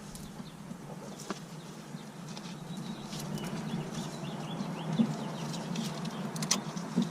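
A few light, sharp clicks and taps of small brake hardware being handled and fitted at the caliper, the loudest about five seconds in and again near the end, over a low steady hum and faint bird chirps.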